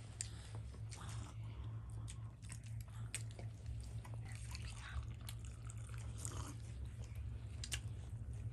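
People eating close by: chewing and biting, with many small irregular clicks, over a steady low hum.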